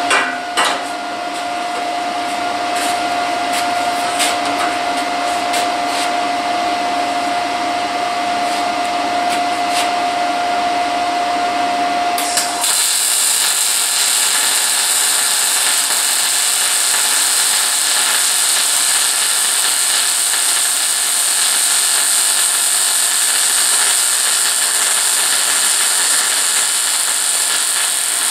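Electric arc welding on a steel frame: a steady, dense sizzling hiss that starts abruptly about twelve seconds in and runs on without a break. Before it there is a steady whine with scattered clicks.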